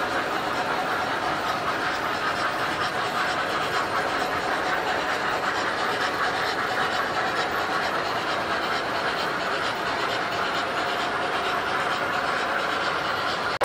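Several model trains running on a layout: a steady rumble and clatter of wheels on track, with the hum of their motors.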